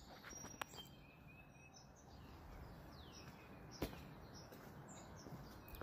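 Faint outdoor ambience with small birds chirping now and then and a low background rumble, broken by two sharp clicks, one about half a second in and a louder one near four seconds.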